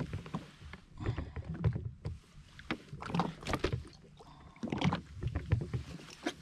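Irregular knocks, bumps and rustling from gear being handled on a jet ski as a snapper is brought to the landing net.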